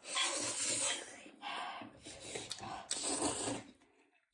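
Three long, noisy slurps of spicy instant noodles being sucked up from the bowl; the last stops suddenly.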